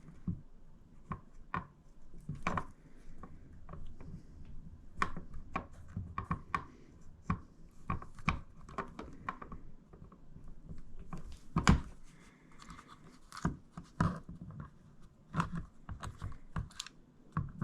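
Hand work on a door lock: irregular clicks, taps and light scrapes of metal lock parts and tools being handled and fitted, with a couple of louder knocks a little past the middle.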